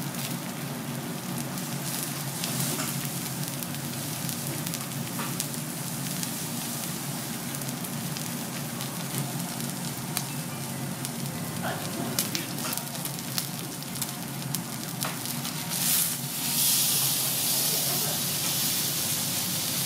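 Thick Kobe beef sirloin steak sizzling on a hot teppanyaki steel griddle, a steady hiss full of small crackling pops. About sixteen seconds in, as the steak is turned onto its unseared side, the sizzle surges and turns louder and hissier.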